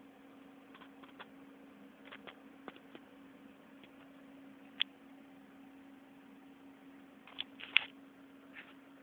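Handling noise on a Nokia X2 phone as it is moved in the hand: scattered small clicks and rubs, a sharp one about five seconds in and a cluster near the end, over a steady low hum.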